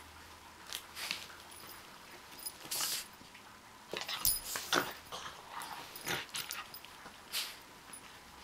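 Miniature pinscher moving and snuffling under a fleece blanket: irregular soft rustles and sniffs, a few louder clusters in the middle.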